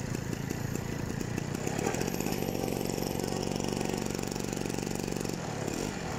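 A small engine running, rough and uneven at first, then settling into a steady idle from about two seconds in until near the end.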